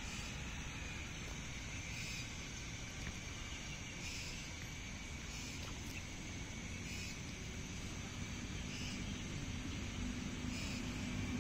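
Steady outdoor background noise: a low rumble with a faint high chirp repeating every couple of seconds, and a low hum coming in near the end.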